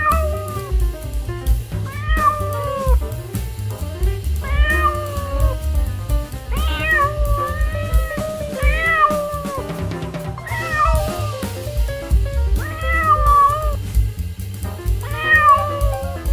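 A cat meowing again and again, each meow under a second with a pitch that rises and falls, roughly every one to two seconds, over background music with a steady bass beat.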